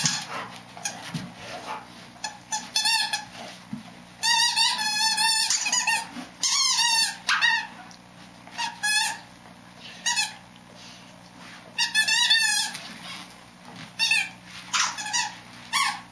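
Squeaky dog toy squeaking in irregular bursts as a dog bites and chews it. There are short single squeaks and several longer runs of rapid, wavering squeaks.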